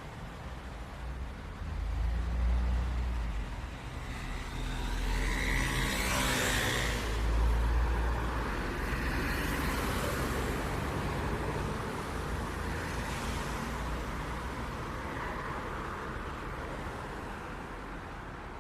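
City street traffic: vehicles passing one after another over a low engine rumble, the closest and loudest pass about six to eight seconds in, then the traffic fades off.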